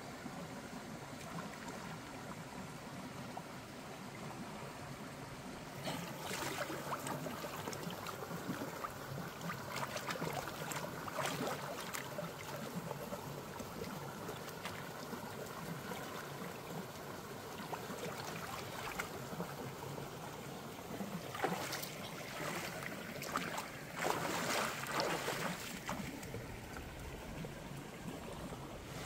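Shallow stream running over rocks, with irregular splashing as a large fish is handled and rinsed in the water; the splashing starts about six seconds in and is heaviest a little past two-thirds of the way through.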